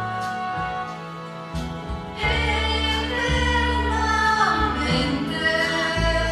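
A woman singing an Italian song into a microphone over electronic keyboard accompaniment, with held bass notes underneath.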